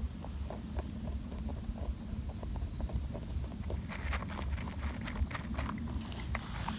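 European rabbit crunching dry feed pellets, a steady run of crisp chewing clicks about four to five a second over a low rumble. From about four seconds in the crunches become louder and sharper.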